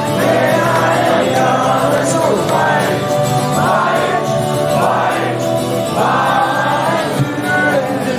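Live rock band playing a slow song, with a male lead voice singing over acoustic guitar and band, and the crowd singing along, heard from among the audience.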